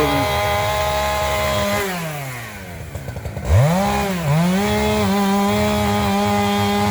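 Two-stroke chainsaw running at high revs. About two seconds in the throttle is let off and the engine note falls to near idle. About a second and a half later it is revved sharply back up, dips once briefly, then holds steady at high speed.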